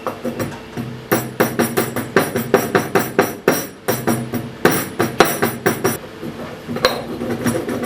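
Black peppercorns being pounded with a pestle in a mortar: quick repeated strikes, about four a second, that thin out to a few single knocks near the end.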